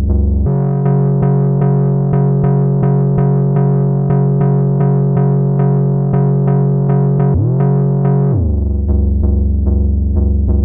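Moog Minitaur analog bass synthesizer playing a bass note retriggered about three times a second. The pitch steps up about half a second in. Near the end it slides smoothly up and back down, a portamento glide as the Glide switch is turned on.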